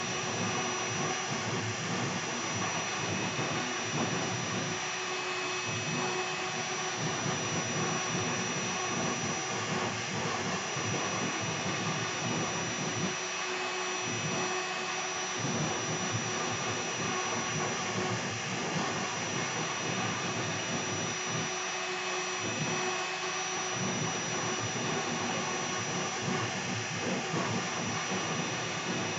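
CNC router's 2.2 kW air-cooled spindle running a 60-degree V-bit through a carve: a steady high whine over a rough cutting noise that swells and drops as the bit moves along the toolpath.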